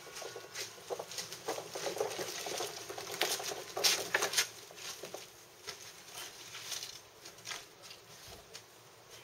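Footsteps and a small wheeled hand cart loaded with flower pots rattling as it is pulled over paving: a run of irregular clicks and knocks, busiest about three to four seconds in and thinning out towards the end.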